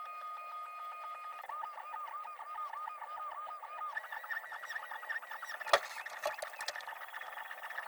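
3D printer's stepper motors whining as the print head moves back and forth, the pitch swelling and dipping about three to four times a second. About halfway through, the whine jumps higher. A sharp click near three-quarters of the way in is the loudest moment.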